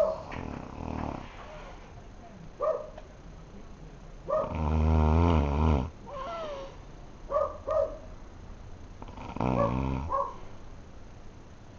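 A man snoring in his sleep, with a long, loud snore about four and a half seconds in and a shorter one near the end. Short high squeaks and a falling whistle come between the snores.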